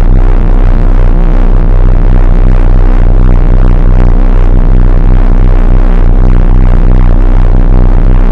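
Extremely loud electronic music, held near full volume, with steady bass tones and a dense, crowded upper layer: a deliberately annoying meme sound.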